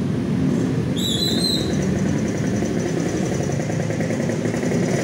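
Motor vehicle engine running steadily close by, with a brief high, rising squeak about a second in.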